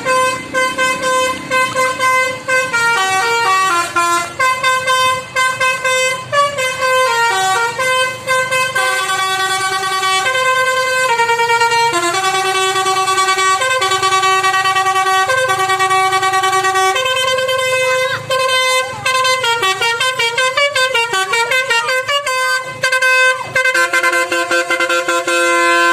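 Indonesian 'telolet' bus horn, a set of horn trumpets playing a loud, continuous tune of stepping notes, several notes sounding at once. It cuts off near the end.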